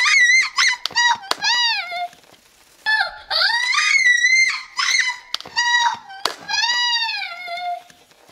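A young girl screaming and squealing with excitement: a string of high, gliding shrieks. They stop briefly about two seconds in, then start again and go on until near the end.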